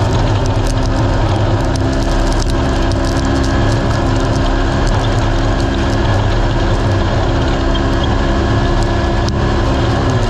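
Naturally aspirated race UTV's engine running hard at steady, nearly constant revs, with many small clicks and rattles over it; the revs dip slightly right at the end.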